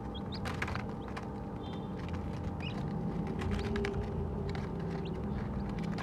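Baby chicks pecking chick feed crumbles in a plastic feeder: rapid, irregular clicks and taps, with a couple of brief high peeps. A steady low hum runs underneath.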